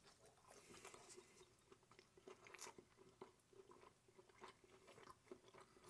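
Faint chewing of a mouthful of cheese quesadilla, with small, irregular crunches of the toasted tortilla.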